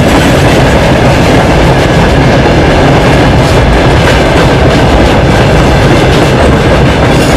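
Freight train of open gondola wagons rolling past close by: a loud, steady rumble with the clatter of wheels over the rail joints.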